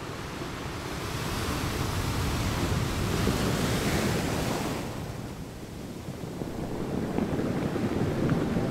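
Ocean waves with wind, a rushing noise that swells, eases off about five seconds in, then builds again.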